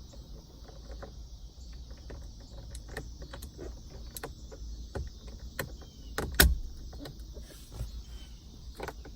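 Small clicks and rattles of hard plastic being handled as an aftermarket climate-control knob and its amber backlight insert are fitted, with one sharp, louder click about six seconds in.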